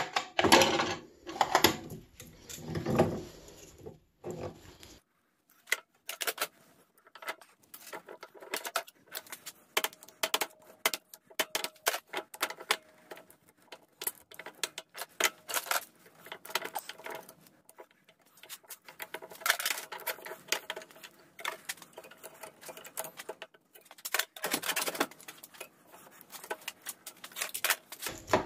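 Screwdriver prying and scraping at the stacked steel laminations of a small transformer clamped in a bench vise, working them loose. A few heavier knocks in the first seconds, then a long run of light, rapid metallic clicks and scrapes.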